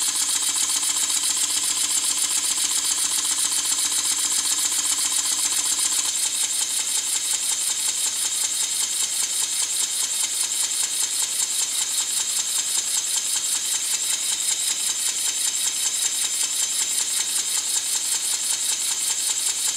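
PM Research #3 horizontal model steam engine running steadily on compressed air at about 6 psi: a rapid, even chuffing hiss of air exhausting from the cylinder.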